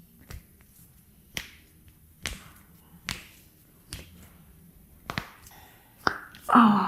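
A string of sharp cracks, roughly one a second: joints popping during a chiropractic adjustment. A short vocal sound near the end.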